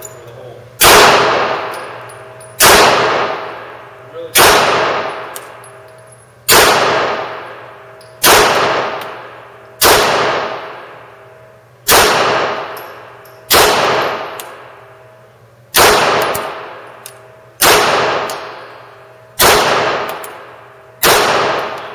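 Semi-automatic pistol fired slowly and steadily, twelve shots about two seconds apart. Each shot rings out in the long echo of an enclosed concrete shooting range.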